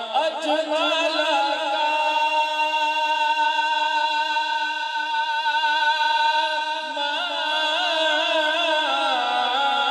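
A male reciter singing a Punjabi naat into a microphone, with no instruments: ornamented runs, then one long held note through the middle, then more runs near the end.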